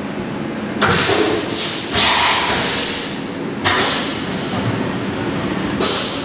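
CNC vertical milling machine running a hole-drilling cycle behind its closed enclosure, humming steadily. Four sudden bursts of hissing spray come as coolant blasts against the enclosure and its window, the longest about a second and a half.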